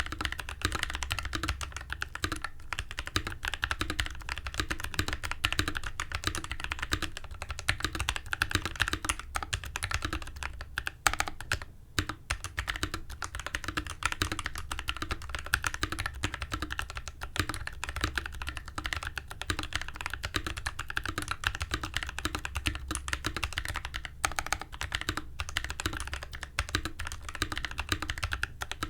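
Mechanical keyboard being typed on steadily in quick, dense keystrokes, with a brief pause a little before halfway. It has PACO switches lubed with Krytox 205g0, clipped and lubed Everglide stabilisers, case and plate film, and PBT cherry-profile keycaps, and is typed on a desk mat.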